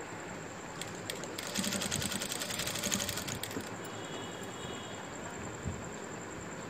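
Sewing machine stitching in a fast run of needle strokes for about two seconds, starting about one and a half seconds in and stopping near the middle, while pleats are stitched into the fabric.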